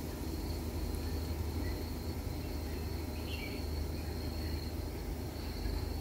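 Outdoor ambience: a steady high-pitched insect trill, with a couple of short bird chirps about three seconds in, over a steady low rumble.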